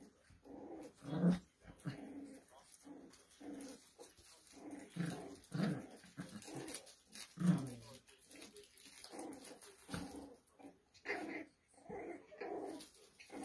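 Poodle puppies play-fighting, growling in many short bursts, loudest about a second in and again about seven and a half seconds in.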